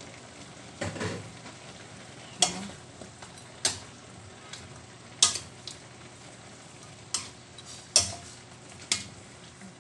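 Pork belly pieces sizzling in a large metal wok as a metal spatula stirs and turns them. The spatula scrapes and knocks against the pan about seven times, every second or so, over the steady sizzle.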